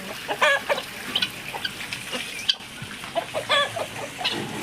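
Chickens clucking and calling, with two louder drawn-out calls, one about half a second in and another about three and a half seconds in.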